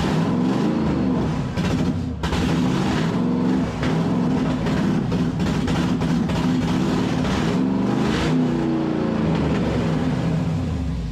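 Engine-swapped 5.3-litre LS V8 running on one of its first starts, its speed rising and falling unevenly rather than holding a steady idle. It is running rough.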